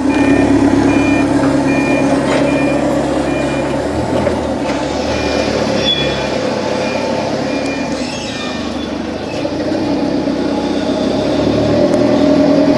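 Forklift reverse alarm beeping about twice a second over a running engine. The beeping stops for about a second and a half about four seconds in, starts again, then stops about seven and a half seconds in while the engine keeps running.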